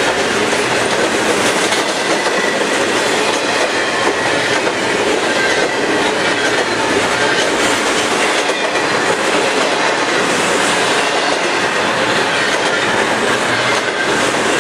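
Double-stack intermodal well cars of a freight train rolling past at speed: a loud, steady rumble and clatter of steel wheels on the rails.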